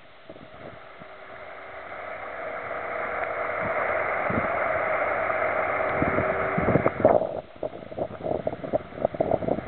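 Wind blowing across the microphone: a steady rush that builds for several seconds and drops away suddenly, then gives way to uneven gusty buffeting.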